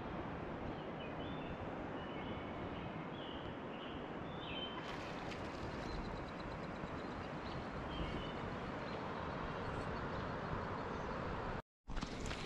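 Outdoor evening ambience by a river: a steady background hiss with faint, scattered bird chirps and a short quick trill. The sound drops out for a moment near the end.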